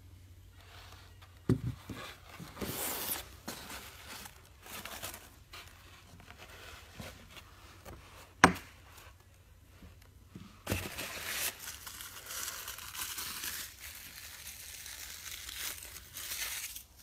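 Plastic packaging crinkling while diecast model crane parts are unpacked and handled, in uneven bursts with a couple of knocks and one sharp click about eight and a half seconds in.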